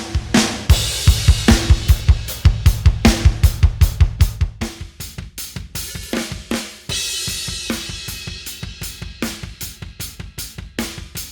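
Recorded rock drum kit playing a driving beat: rapid kick drum hits under a snare backbeat, with crashing cymbals and hi-hat. The kick pattern is densest in the first few seconds, then the beat carries on with more cymbal wash.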